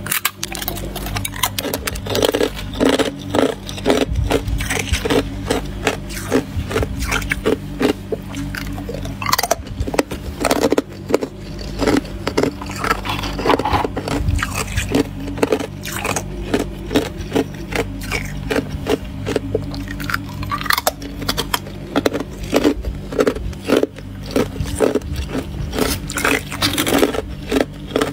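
Thin sheet ice being bitten and crunched between the teeth, chewed in a quick steady rhythm of about three crunches a second, over a steady low hum.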